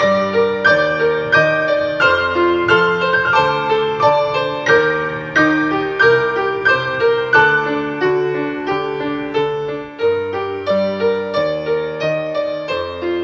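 Background piano music: a steady flow of struck notes, several a second, each fading after it is played.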